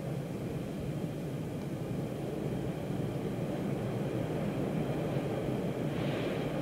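MBTA Orange Line subway train running through a tunnel, heard from inside the car: a steady rumble of wheels on rail with a faint high whine above it. About six seconds in, a brief rise in hiss.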